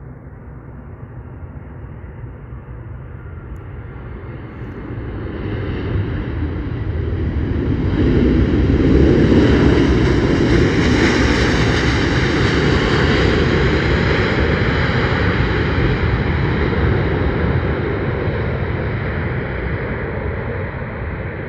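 Airbus A319 jet engines, the noise building over several seconds to a loud, sustained peak and then slowly easing off.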